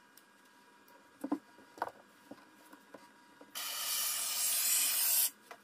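Two light knocks, then an aerosol can of Great Stuff expanding foam spraying into a wall cavity: a steady hiss lasting about two seconds that cuts off suddenly.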